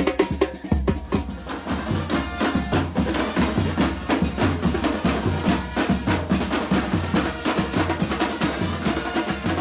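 A band's drums playing a fast, dense beat: bass drum thumps under snare strokes and rolls.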